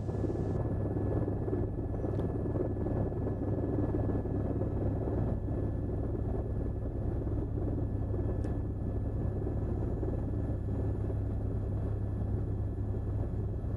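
Steady low rumble of a news helicopter's engine and rotor heard inside the cabin.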